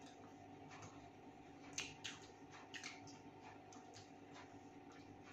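Quiet eating sounds: a few soft clicks and smacks from chewing and from fingers picking at food on plates, clustered around the middle, over a steady low room hum.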